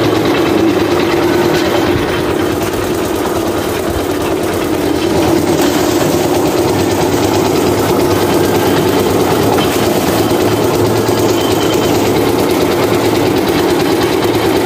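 Engine-driven abaca stripping machine running steadily, its large flywheel and stripping spindle turning under load as abaca fiber is pulled through. It gets a little louder about five seconds in.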